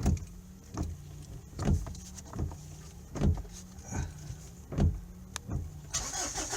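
Ford Ranger pickup being test-started on a new ignition switch: a steady low hum with a short knock repeating about every 0.8 seconds, and a hiss coming up near the end.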